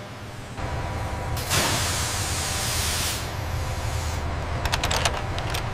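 Factory machinery ambience. A steady low machine hum sets in just after the start. A loud hiss follows, lasting about a second and a half, and a quick run of sharp clicks comes near the end.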